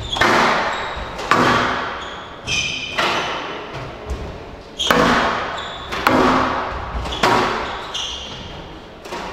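Squash rally: the ball is struck by rackets and smacks off the court walls in about seven sharp hits, roughly one a second, each ringing on in the echoing court.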